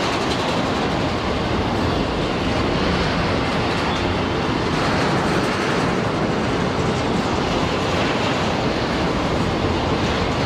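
Freight train of covered grain hopper wagons rolling past at close range: steel wheels running over the rails in a steady, unbroken rumble.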